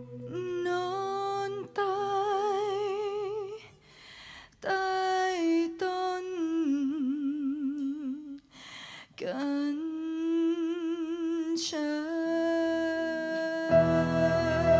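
A young woman singing a slow, nearly solo vocal line, long notes with wide vibrato separated by short pauses for breath. Low band notes come in about a second before the end.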